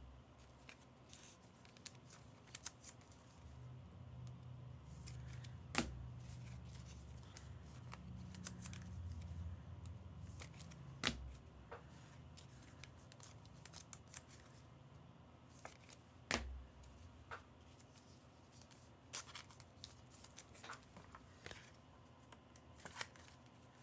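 Trading cards being handled at a table: soft sliding and shuffling with scattered small clicks, and three sharper taps about five seconds apart.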